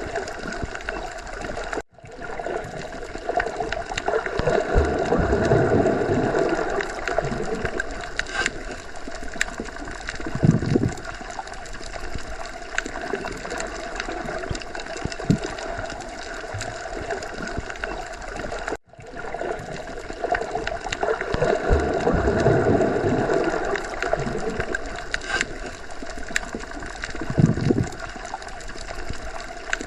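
Underwater sea ambience: a continuous muffled wash of water with gurgling swells and low surges. The pattern repeats about every 17 seconds, with a brief dropout near two seconds in and again a little past halfway, where the loop restarts.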